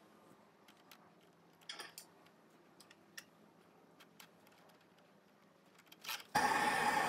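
Faint scattered clicks of hands fitting a loop terminal onto an earth wire. About six seconds in, a gas blowtorch starts with a sudden steady loud hiss as it is used to shrink heat-shrink tubing over the terminal.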